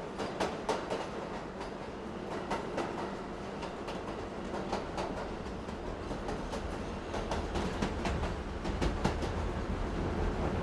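Subway car in motion heard from inside: a steady low rumble of the train with frequent sharp clicks and clacks of the wheels over the rail joints, the rumble growing a little louder toward the end.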